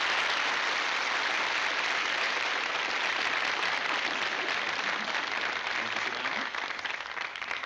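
Audience applauding steadily, dying down near the end.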